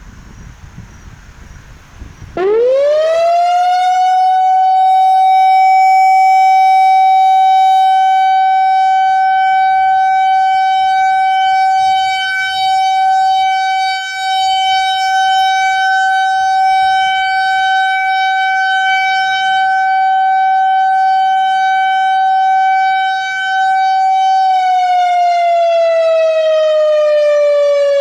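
Whelen WPS-4004 outdoor warning siren sounding the steady alert signal of a siren test. About two seconds in it starts and rises quickly to one high steady tone, which holds with a few brief dips in level. A few seconds before the end it begins to wind down in falling pitch.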